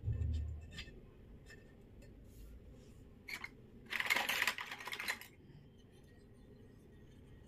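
Miniature stainless-steel toy kitchenware being handled: a dull thump at the start, a few light metallic clicks, then a dense clattering rattle of small steel pieces about four seconds in, lasting just over a second.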